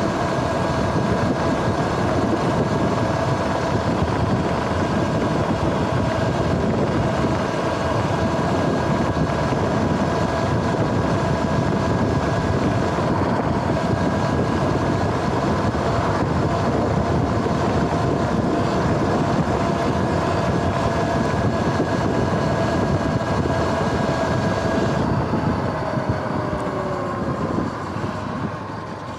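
Sur-Ron X electric dirt bike's motor and drivetrain whining steadily at cruising speed, over wind and road noise. Near the end the whine falls in pitch as the bike slows.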